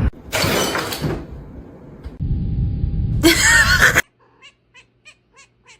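A cat yowling amid loud noisy clatter, cut off abruptly about four seconds in, followed by a few faint short chirps.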